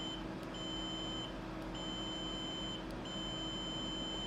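Beeper of a Rohde & Schwarz HMC8012 bench multimeter sounding in diode-test mode as the probes touch the component: a steady high tone, on and off in beeps of about a second with short gaps between them.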